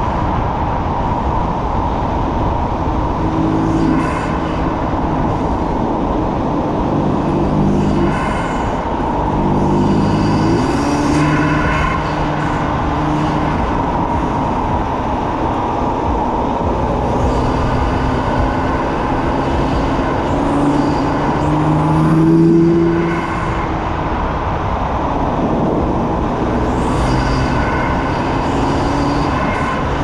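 BMW F80 M3's twin-turbo inline-six running through its M Performance titanium exhaust on the move, under heavy wind and road noise. The engine note holds steady for stretches and shifts pitch between them, rising briefly about 22 seconds in, where it is loudest.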